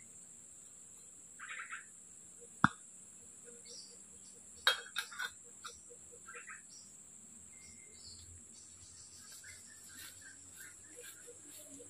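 Steady high-pitched insect drone from the tropical forest, with a few sharp clicks and clatters of camp cookware being handled: one loud click about two and a half seconds in, and a quick cluster of them near five seconds.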